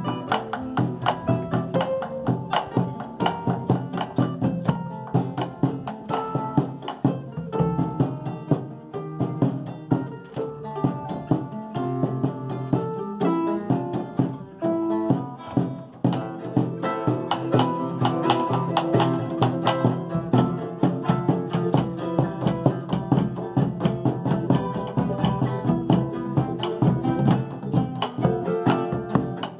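Charango and acoustic guitar playing an Andean instrumental tune together.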